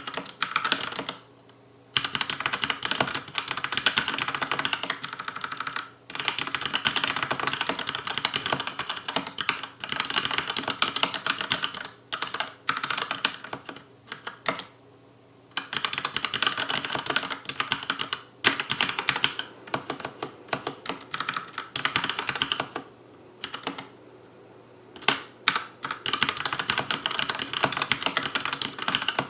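Fast touch typing on a Logicool K835 TKL mechanical keyboard with TTC linear red switches on an aluminium plate: rapid clacky keystrokes in long runs, broken now and then by pauses of about a second.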